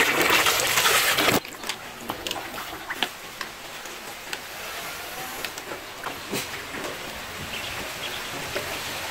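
Water gushing from a hose into a plastic tub, cutting off suddenly about a second and a half in. After that, quieter water sounds with scattered light clicks and splashes as ducklings paddle among floating plastic balls.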